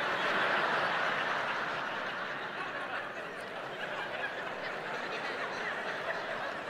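Audience laughing at a joke: a crowd's laughter swells in the first second and then slowly dies away.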